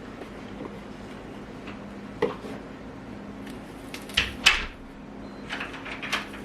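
A few knocks and clatters of household objects being handled, like cupboard doors and containers in a kitchen, the loudest pair about four seconds in, over a faint steady hum.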